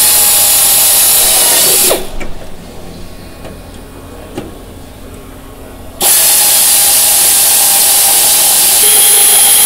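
Hand-held pneumatic air drill run in two bursts, about two seconds and then about four seconds from six seconds in, a steady high whine with hiss of exhaust air as it drills into the aluminium airframe structure.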